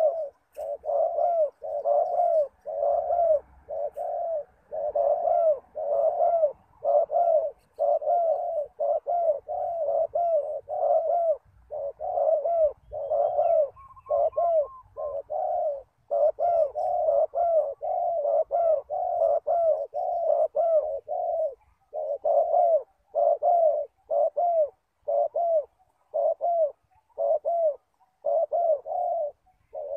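Spotted dove cooing over and over: a steady run of short, arched coo notes, more than one a second with only brief breaks. A fainter, higher call is heard briefly about halfway through.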